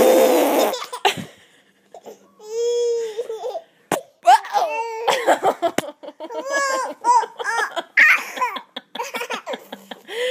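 A blown raspberry fart noise at the start, then a toddler boy laughing in repeated bursts, with one drawn-out voiced sound about two and a half seconds in.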